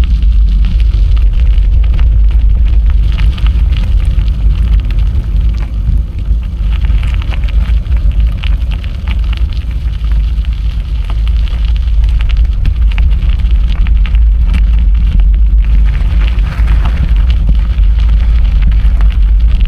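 Heavy wind rumble on the microphone of a camera carried on a moving bicycle, with a dense crackling over it from the bike rolling along the path.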